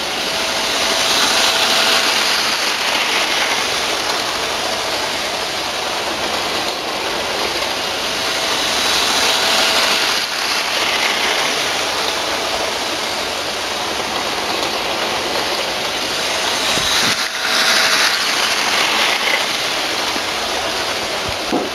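Model railway train running on the track close by, a steady whirring and rail hiss that swells about every eight seconds as it comes round the loop, with a faint motor whine in each swell.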